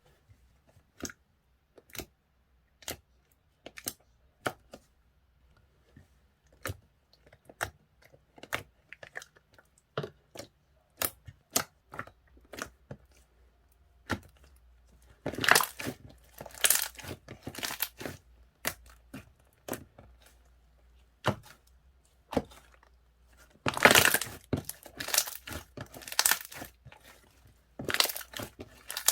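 Hands handling paper and plastic close up: sharp separate clicks and taps, then stretches of crinkling and tearing around the middle and again near the end.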